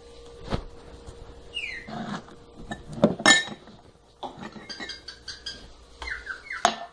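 A drinking glass clinking and knocking as it is handled, with a few sharp knocks: one about half a second in, a cluster around three seconds, and one just before the end.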